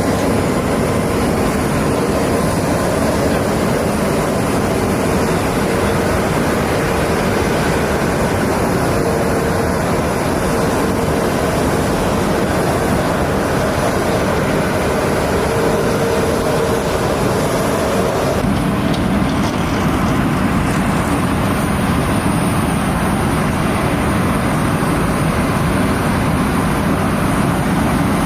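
Steady, loud rumbling and rushing noise of heavy transport machinery running. A faint held hum in it stops abruptly about two-thirds of the way through, where the sound changes.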